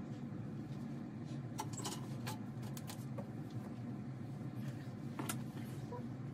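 Steady low room hum with a few faint, scattered clicks and rustles from someone moving about close by.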